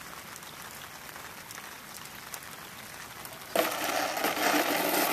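Steady hiss of rain with faint drop ticks. About three and a half seconds in, the electric motor and propeller of a ParkZone T-28 RC plane cut in suddenly, a loud, close whine.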